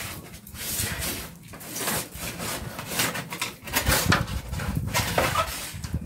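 Irregular rubbing and scraping strokes as twine is pulled and worked along a wrapped pipe.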